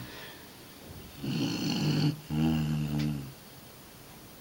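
A sleeping pet snoring: about a second in, one rasping breath followed straight away by a lower, buzzing snore, then a pause before the next breath.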